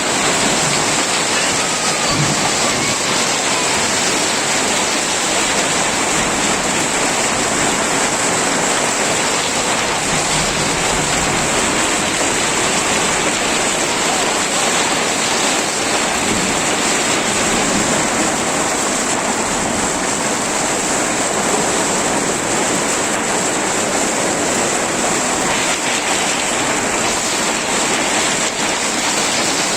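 Torrential downpour of a Kalbaishakhi (nor'wester) storm: a steady, dense rush of heavy rain.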